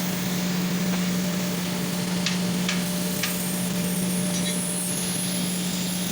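TIG welding arc on stainless steel: a steady buzzing hum over an even hiss, with three faint ticks near the middle.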